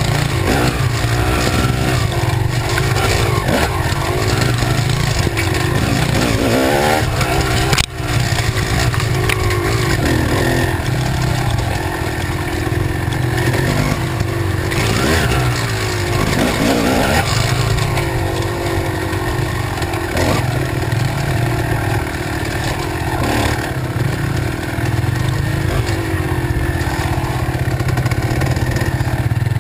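Kawasaki KX250 two-stroke dirt bike engine running under load, its pitch rising and falling with the throttle. The sound cuts out briefly about eight seconds in.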